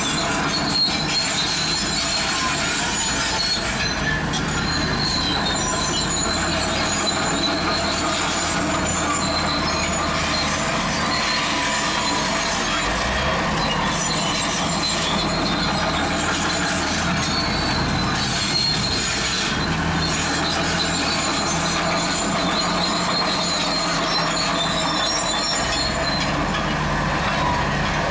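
Zoomlion crawler bulldozer at work, its diesel engine running under load while the steel tracks squeal and clank, a steady din with high-pitched squeals that come and go.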